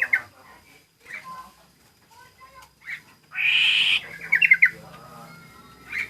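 Plentet songbird calling: short sharp chirps a second or so apart, then a loud harsh squawk about three seconds in, followed at once by a quick run of five or six bright notes and one more sharp call near the end.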